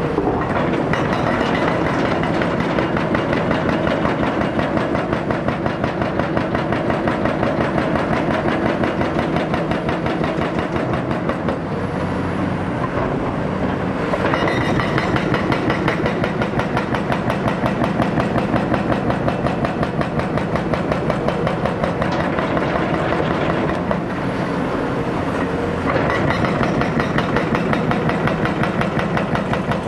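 Hydraulic breaker on a Caterpillar 336F excavator hammering concrete in rapid, steady blows, with the excavator's diesel engine running under load. The hammering pauses and changes briefly a couple of times as the chisel is reset.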